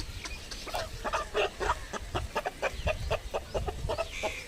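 Rooster giving a rapid string of short, rough clucks, about five a second, starting just under a second in.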